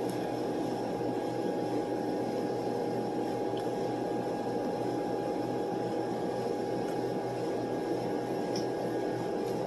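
Steady background hum and hiss of room machinery, with a constant high tone running through it and no distinct knocks or clicks.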